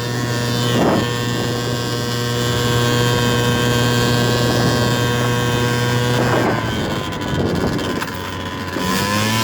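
70cc big-bore two-stroke scooter engine running at steady revs under throttle, then the revs drop and waver about six seconds in and pick up again near the end.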